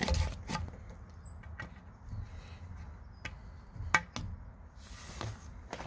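Irregular short clicks and taps from hands working drip tubing in a cut PVC sprinkler pipe set in wet soil, about half a dozen in all.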